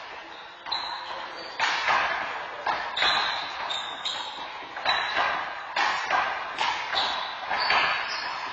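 Handball rally: a quick, uneven string of about ten sharp smacks as hands hit the rubber ball and the ball strikes the wall and floor, each echoing in the hall.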